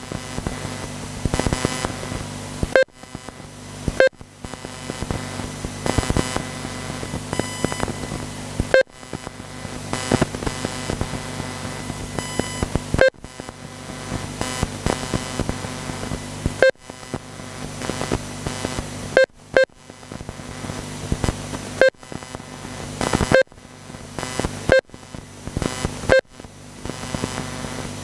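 Short electronic beeps from the race timing system, one each time a car crosses the timing line: about a dozen at uneven intervals, over a steady low hum and background noise.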